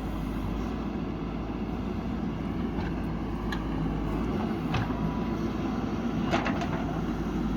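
Backhoe loader's diesel engine running steadily under work, with a few sharp knocks from the digging gear.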